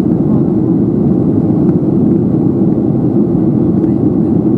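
Steady cabin noise of a Boeing 737-700 in flight, heard at a window seat beside the wing: an even, low rumble of its CFM56-7B jet engines and the airflow over the fuselage.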